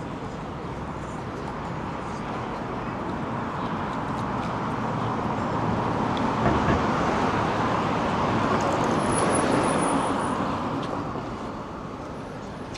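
Street traffic noise: a motor vehicle passes close by, its tyre and engine noise swelling to a peak about two-thirds of the way through and then fading.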